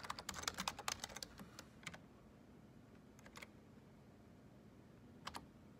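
Typing on a computer keyboard: a quick run of key clicks for about two seconds, then a few single keystrokes with pauses between them.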